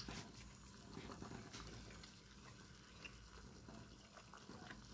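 Faint chewing of a soft flour tortilla wrap, almost at silence: a sharp click of the bite right at the start, then soft mouth clicks and smacks.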